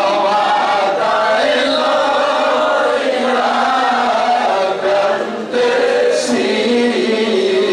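A man chanting a munajat, an Islamic supplicatory prayer, into a handheld microphone in long, slowly sliding held notes, with a short break about five and a half seconds in.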